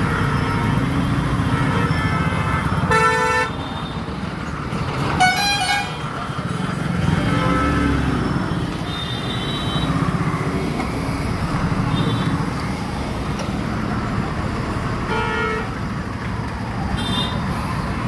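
Vehicle horns honking in slow, jammed traffic: about half a dozen short horn blasts, the loudest two a few seconds in, over a steady rumble of engines.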